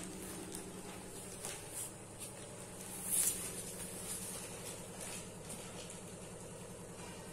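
A steady low mechanical hum, with a few soft rustles and taps over it; the loudest is a brief rustle about three seconds in.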